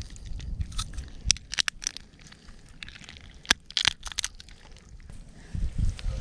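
Dry wood at a small campfire cracking and crackling: a handful of sharp, irregular cracks, bunched around one and a half and four seconds in, over a low rumble.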